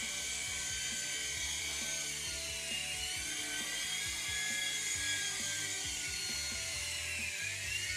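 Small electric toy RC helicopter (3.5-channel, built-in gyro) hovering, its tiny motors and rotors giving a steady high-pitched whine whose pitch sags and recovers a few times as the throttle changes.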